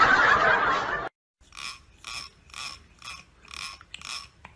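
A thumb strummed across the teeth of a comb: six short strokes, about two a second. Before them, a loud noise cuts off abruptly about a second in.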